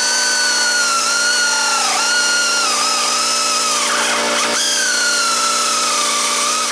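Electric drill boring a hole through a wooden trailer frame with a wood bit: a steady motor whine whose pitch sags several times as the bit bites into the wood under load.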